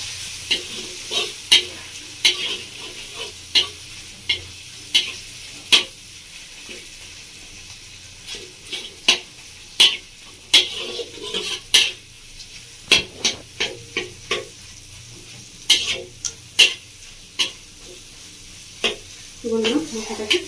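Tomatoes and ginger paste sizzling in hot oil in a hammered brass kadai with a steady hiss, stirred with a metal spatula that clicks and scrapes against the pan at irregular intervals, roughly once a second.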